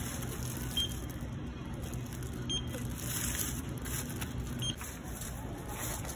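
Handheld barcode scanner beeping three times, short high beeps about two seconds apart as items are scanned, over a low steady hum and faint rustling.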